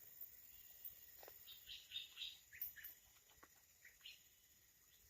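Faint bird chirps: a quick cluster of short high calls about two seconds in, then a few single chirps.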